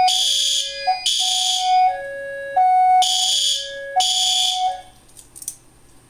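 Fire alarm notification appliances sounding in alarm from a pulled manual pull station. Horn blasts come about once a second with a pause after three, over a steady two-tone high-low alternating signal. The signals cut off about five seconds in as the alarm is silenced at the Fire-Lite annunciator, and a small click follows.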